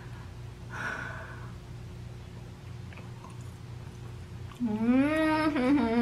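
A woman hums a long, pleased "mmm" while tasting her food, starting near the end and sliding up and down in pitch. Under it runs a steady low room hum, and there is a short breathy sound about a second in.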